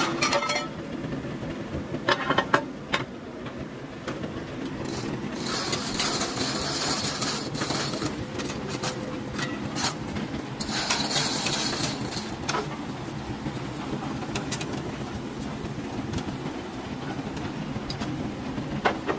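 Steady mechanical rumble of workshop machinery. A few sharp clanks come about two seconds in, and there are two bursts of high hiss, each lasting two to three seconds.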